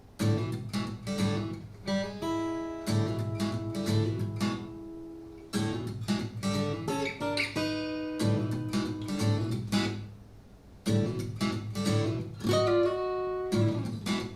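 Acoustic guitar music played back through Edifier S1000MKII bookshelf speakers: strummed chords in short phrases with a few held ringing notes between them.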